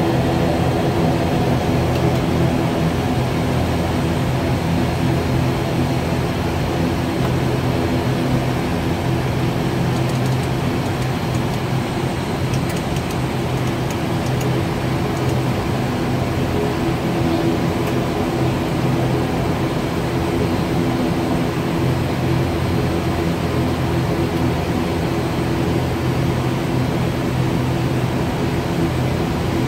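The ATR 72-600's twin turboprop engines and propellers running at low power as the aircraft taxis, heard inside the cockpit as a steady drone made of several low, even tones over a hiss.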